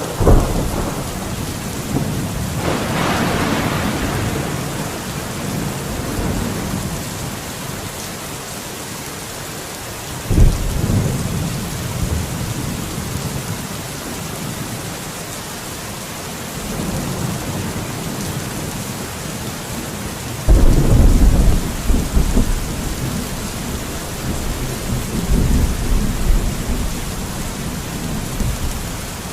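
Steady rain with rolling thunder: low rumbles start suddenly just after the start, about ten seconds in, and about twenty seconds in, the last one the longest.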